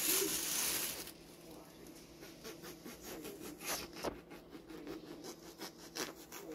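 A serrated bread knife sawing through a bread roll: a quick run of short rasping strokes, about three or four a second, after a loud rustle in the first second.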